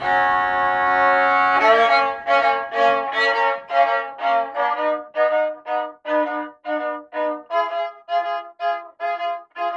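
Violin bowed solo: a loud held note to begin, then a run of short, detached notes at about three a second.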